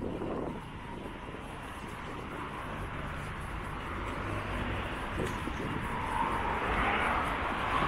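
Steady rumble and hiss of a passing vehicle on an urban road, growing gradually louder over several seconds.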